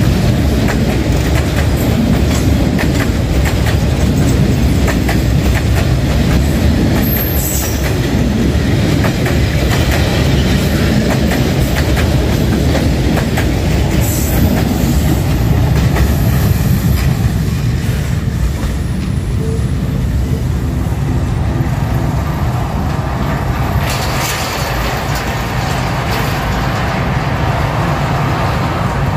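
A rake of passenger coaches hauled by a D13E diesel locomotive running along the track. Continuous rumble with the wheels clicking over rail joints, and brief high-pitched wheel squeal twice.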